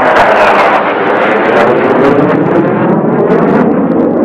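Fighter jet flying past: loud, steady jet engine noise with a shifting, phasing sweep in its tone as it passes.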